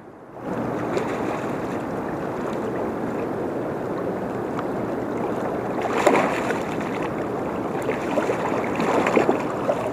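River water rushing steadily, with a few brief sharper sounds about six and nine seconds in.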